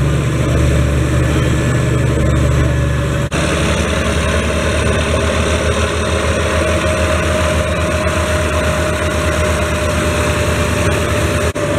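The Schlüter Profi Trac 3500 TVL's 320 hp turbocharged, intercooled MAN diesel engine running steadily while the tractor works a disc harrow, heard from on the tractor. The sound drops out briefly about three seconds in and again near the end, and the engine note is slightly different after each break.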